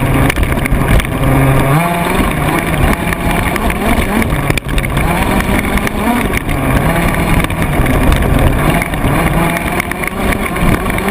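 Radio-controlled off-road buggy heard from its own chassis-mounted camera while driving on dirt: its motor rises and falls in pitch with the throttle over a constant rattle and rush of the chassis and ground.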